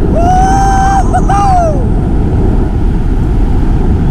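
Loud, steady rumble of wind buffeting the microphone and tyre noise while riding a mountain bike down a trail. Near the start a high, held tone sounds for about a second and a half, breaks off briefly in the middle, and slides down in pitch as it ends.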